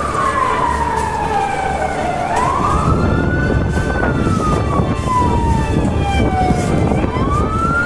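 Emergency vehicle siren in a slow wail, falling and rising in pitch about once every four seconds, over a steady low rumble of road noise.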